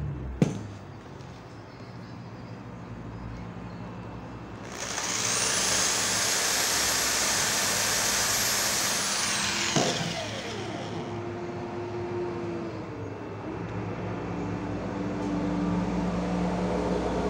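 Power drill spinning up with a high whine as it drills into a PVC lampshade ring, running steadily for about five seconds, then winding down. A sharp click sounds about half a second in, and low humming tones sit underneath before and after the drilling.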